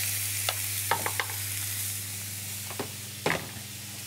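Finely chopped onion sizzling in hot olive oil in a pan, the sizzle slowly easing. There are a few light knocks and taps, and a steady low hum underneath.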